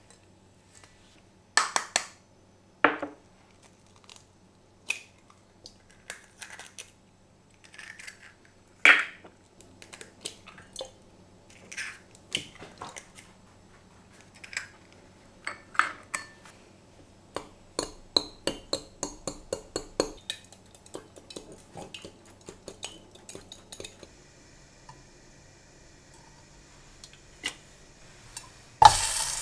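Kitchen knocks and clinks on glass as eggs are cracked against a glass jug, with a quick run of clinks in the middle. Near the end a pan starts to sizzle with a steady hiss.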